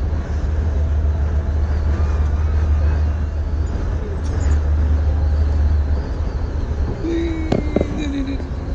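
Steady deep rumble of engine and road noise inside a moving vehicle. A sharp knock about seven and a half seconds in.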